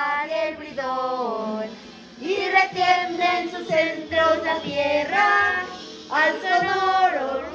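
Music with singing: a sung voice holding long notes that bend in pitch, with accompaniment underneath.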